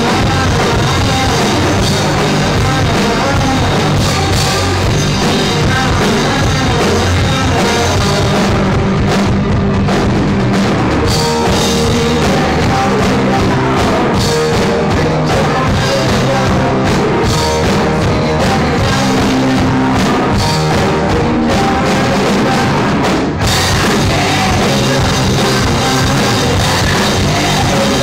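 Live indie rock band playing loud: electric guitar, bass guitar and drum kit, with a singer. The high end thins out about nine seconds in, and the full band comes back in sharply at about 23 seconds.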